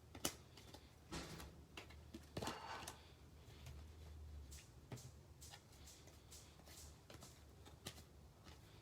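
Faint handling of a stack of baseball trading cards: soft rustles and flicks as cards are slid and turned, with a sharp click just after the start.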